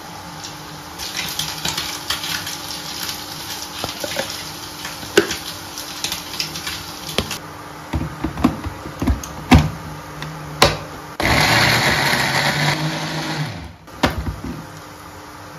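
Knife cutting red chillies on a wooden cutting board, with pieces dropping into a small plastic blender jar, then sharp knocks as the jar is fitted onto a Philips blender base. About eleven seconds in, the blender runs for a couple of seconds, grinding the chillies and shallots into a spice paste, and stops abruptly, followed by a couple of knocks.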